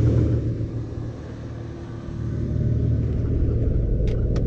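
Toyota 4Runner engine idling steadily, dipping a little about a second in. Near the end, two light clicks from the headlight switch being turned on.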